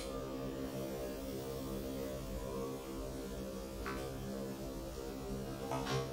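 Steady low hum, with a light clink of the pan's glass lid about four seconds in as it is lifted off, and another short knock near the end.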